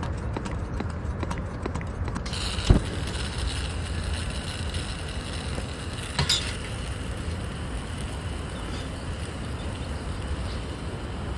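Camping stove being lit: a run of small clicks, then the gas starts hissing about two seconds in, with a sharp pop as it catches. The burner then hisses steadily, with a clunk around six seconds in as a moka pot is set on the flame.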